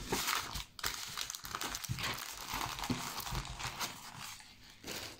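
Plastic packaging and a paper sleeve rustling and crinkling as a plastic-wrapped diamond-painting kit is slid into the sleeve and handled. The rustle eases off near the end.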